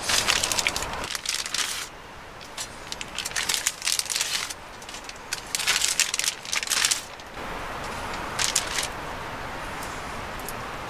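Thin plastic bag crinkling and rustling in several short bursts as it is handled, with a quieter steady hiss in the background.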